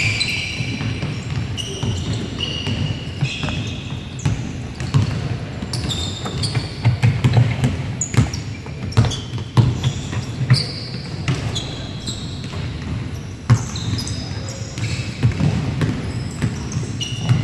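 Basketball dribbled and bouncing on a hardwood gym floor, with many short high sneaker squeaks and running footsteps.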